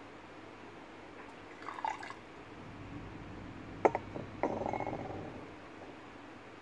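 Unglazed Bizen stoneware teaware being handled and set down on a tea table: a few light clinks about two seconds in, one sharp ceramic knock near the middle, then about a second of softer rasping.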